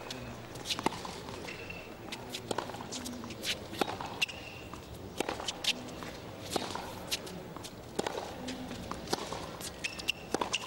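Tennis rally on a hard court: a run of sharp pops from racquet strikes and ball bounces, roughly one every half second to a second. Short sneaker squeaks and scuffing footsteps come in between.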